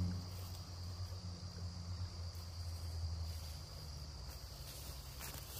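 Insects chirring in a steady high-pitched drone, with a low rumble underneath that fades after about three and a half seconds.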